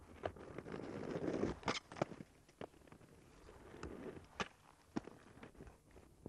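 Inline skate wheels rolling over brick paving with a rough rumble that swells about a second in and again near four seconds, broken by a few sharp clacks of skate impacts, the loudest about two seconds in.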